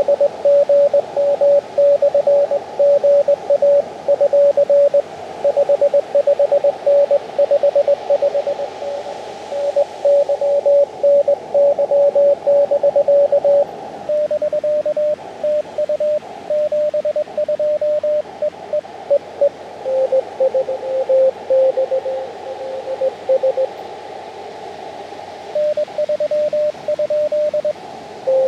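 Morse code (CW) tones from an Elecraft KX2 ham radio transceiver: a mid-pitched beep keyed in dots and dashes, over steady band hiss. The beep changes pitch slightly a few times as different stations take turns.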